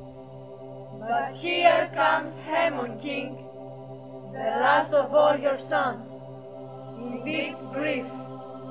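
A chorus of young women's voices chanting in unison in three phrases, over a steady musical drone.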